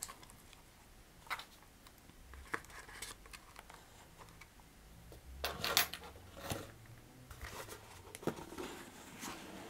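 Hands handling a cardboard doll box: scattered scrapes, rustles and soft knocks as the doll is settled in the box and the lid is put on, the loudest cluster about halfway through.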